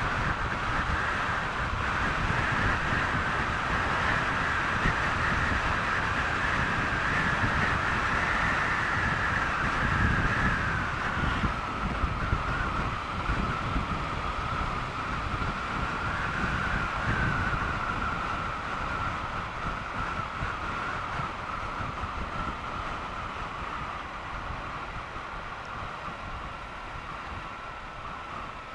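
Onboard sound of a Triumph Bonneville T120 parallel-twin motorcycle being ridden at road speed, mostly wind rushing past the helmet-mounted microphone over the engine. A steady high whistle runs through it and drifts slightly lower. The rumble eases off and gets quieter in the last third.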